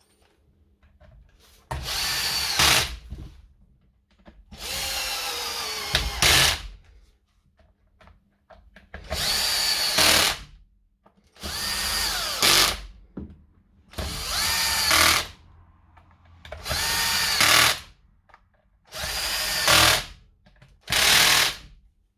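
Power screwdriver driving in the housing screws one after another: eight short runs, each spinning up with a rising whine and ending in a sharp click as the screw goes home.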